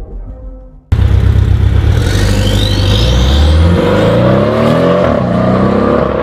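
Porsche 718 Cayman S's turbocharged flat-four running through an Armytrix valved turbo-back exhaust as the car accelerates away. The loud exhaust note cuts in suddenly about a second in and rises in pitch as the engine revs.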